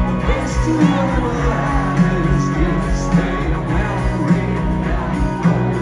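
Live rock band playing: a male singer over electric guitars, bass and a steady drum beat, amplified through a stadium sound system.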